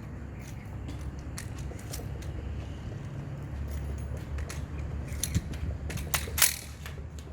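Low steady rumble with a few short, sharp metallic clicks and clinks scattered through it, the loudest about six seconds in.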